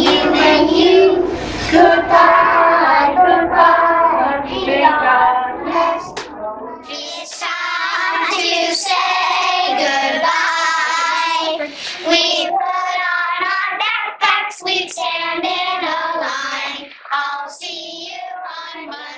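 A group of young children singing a goodbye song together.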